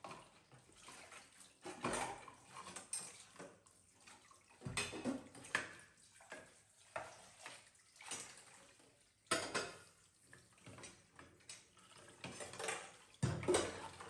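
Ceramic plates and bowls clinking and clattering against each other and a stainless steel sink as they are washed by hand, in irregular knocks, with tap water running into the sink.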